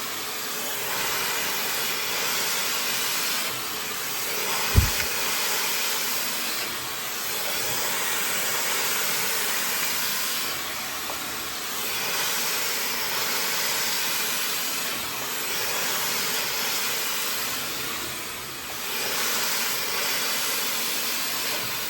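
High-speed hair dryer blowing steadily, its airflow hiss swelling and dipping every few seconds as it is worked over the hair. There is a brief knock about five seconds in.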